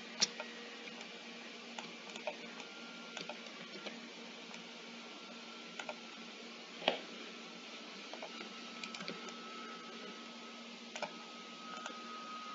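Scattered computer mouse and keyboard clicks, a few a second at irregular spacing, with a sharper click just after the start and another about seven seconds in. A steady low electrical hum runs underneath.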